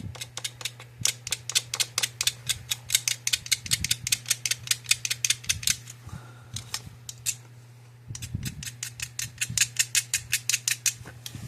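Rapid sharp scraping clicks, several a second, from a hand tool working at the fine insulating coating on a thin wire, in two runs with a pause about six to eight seconds in, over a steady low hum.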